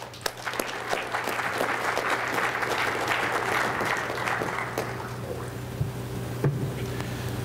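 Audience applauding a speaker's introduction. The clapping fades out about five seconds in, leaving a low steady hum and a few soft knocks.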